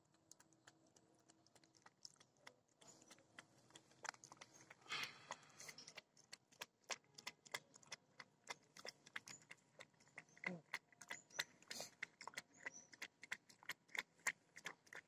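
A puppy lapping milk from a paper plate: a run of small wet tongue clicks, sparse at first and about three a second from halfway on.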